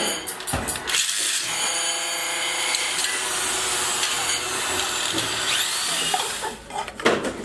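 An electric motor runs steadily with a whine for about five seconds, then cuts off. Aluminium motor-housing parts knock and clink just before it and again near the end.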